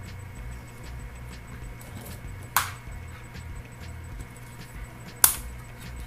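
Green plastic pry tool working under the edge of a Microsoft Surface RT tablet's screen: two sharp cracking snaps about two and a half seconds apart, with faint small ticks between them.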